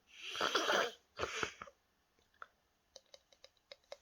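A short cough or throat-clearing, twice, then a quick run of small sharp clicks from handling a plastic fidget toy.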